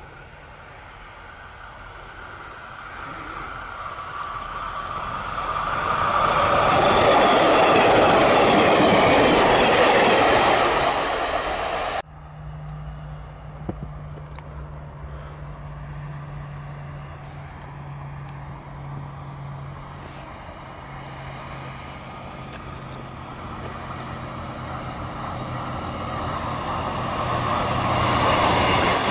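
A Class 142 Pacer diesel multiple unit approaches and passes, its engine and wheel noise building to a loud peak and then falling away. After a sudden cut, a Class 158 diesel unit hums steadily at a distance and grows louder as it approaches near the end.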